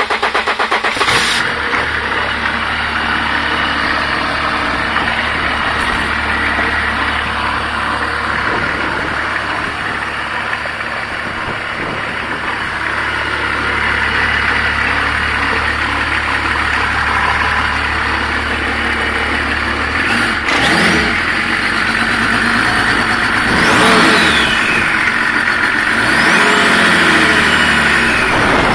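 BMW M51 2.5-litre six-cylinder turbo-diesel engine running on its own. It idles steadily, then is revved up and let fall back a few times in the second half.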